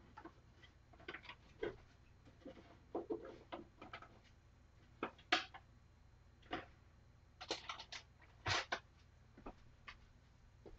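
Scattered light clicks and knocks at irregular intervals, like small objects being handled, the sharpest about five and a half and eight and a half seconds in, over a faint low steady hum.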